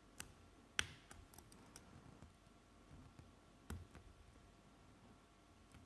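A lock being picked: scattered faint clicks and ticks of a pick and tension tool working the spool pins of a pin-tumbler lock. There is a louder click a little under a second in and another, with a dull knock, near four seconds in.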